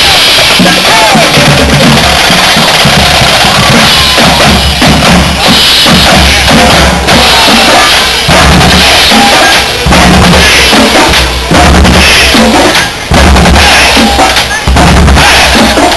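A marching band playing as it passes close by, very loud: bass drums and snare drums beat steadily under the low notes of sousaphones and other brass.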